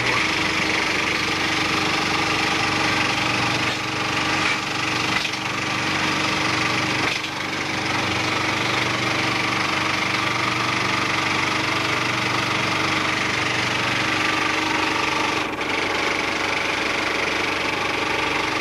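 Cinemeccanica 35/70mm film projector running 70mm film, a steady mechanical clatter that dips briefly a few times.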